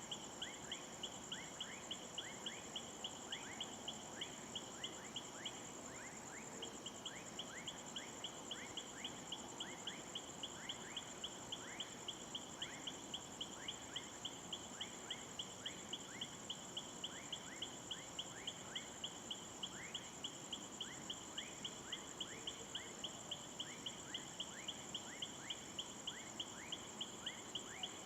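Night insects: a steady high-pitched trill with a regular chirp about twice a second, pausing briefly about six seconds in, and short rising chirps scattered throughout.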